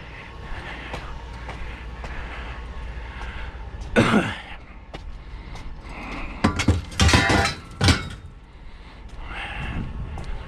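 Scrap metal pieces clanking as they are handled and dropped, a single hard clank about four seconds in and a quick run of ringing clanks a little past halfway, over a steady low hum.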